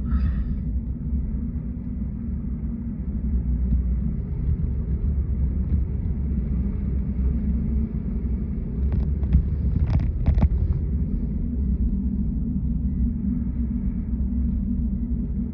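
Steady low rumble of a car driving, engine and road noise heard from inside the cabin, with a few sharp clicks about ten seconds in.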